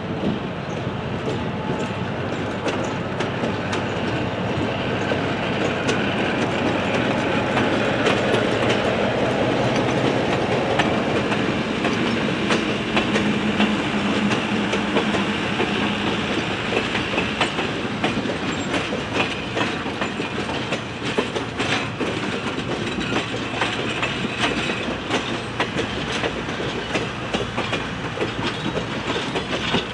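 Passenger train passing: Atlantic Coast Line EMD E3 diesel locomotive No. 501's engine running as it goes by, then the passenger cars' wheels clicking over the rail joints, the clicks coming thicker in the second half.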